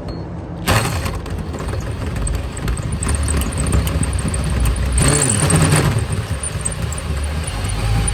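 Electric drill motor running and cutting a hole through the van's sheet-metal body for the cable gland, the cutting noise coming in sharply just under a second in.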